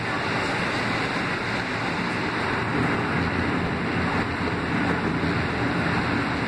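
Kawasaki R160B subway train running through a tunnel: a steady roar of wheels on rail and rushing air, even in level throughout.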